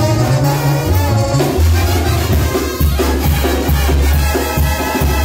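Latin dance music from a band: drum kit and bass carrying a steady beat, with the other instruments playing over it.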